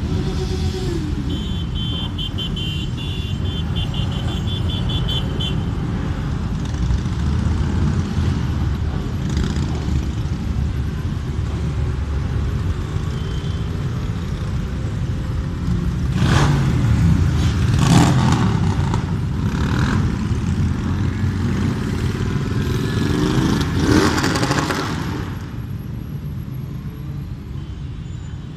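Engines of a long stream of motorcycles riding past in procession, a steady mixed drone of many bikes. Louder bikes rev up as they pass a little past halfway and again a few seconds later, and the drone eases off near the end.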